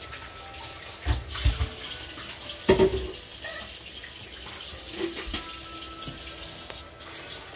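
Water, chocolate and piloncillo boiling in a stainless steel stockpot, a steady bubbling hiss. A few knocks and thumps cut in about a second in, with the loudest near three seconds in.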